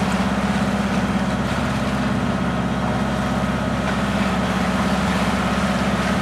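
The engine of a 1936 wooden powerboat running steadily under way, a low even drone heard from inside the wheelhouse.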